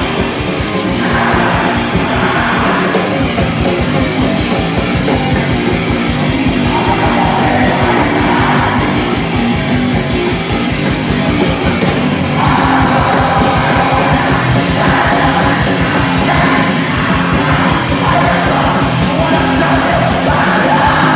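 Live heavy rock band playing loudly: electric guitar through an amplifier and a drum kit playing a fast beat, with a singer yelling into a microphone in stretches.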